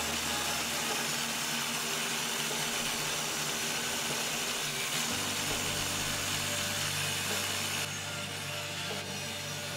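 Table saw ripping a pine board lengthwise, the blade cutting steadily along the grain as the board is fed past the fence; the high hiss eases a little near the end.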